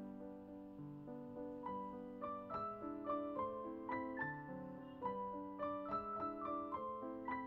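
Gentle keyboard background music: a slow piano-like melody over held chords, with the notes coming more often from about two seconds in.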